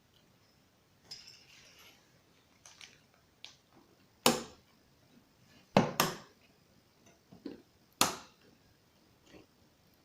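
Hard computer parts being handled and fitted during a desktop PC build: a series of sharp clicks and knocks. There are light taps early on, then four loud knocks: two close together about six seconds in, and one each about four and eight seconds in.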